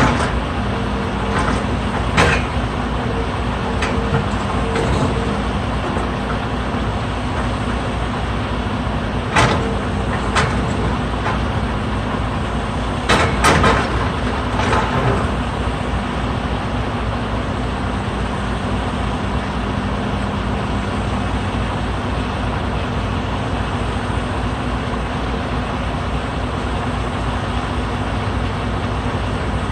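Heavy diesel engine running steadily, with a few sharp knocks and clanks about two seconds in, around ten seconds and around fourteen seconds.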